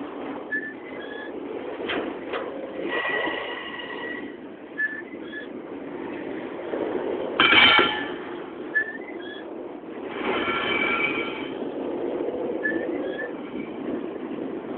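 Freight train cars carrying intermodal containers rolling past close by, a steady rumble with high-pitched wheel squeals that come and go. Short paired squeaks recur every few seconds, and a loud clatter comes about halfway through.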